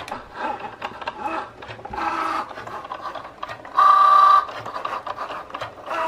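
Cricut Joy cutting machine cutting vinyl: its motors whir in short, changing whines as the blade carriage moves across and the vinyl feeds in and out, with small clicks between moves. A louder, steady whine lasts about half a second around four seconds in.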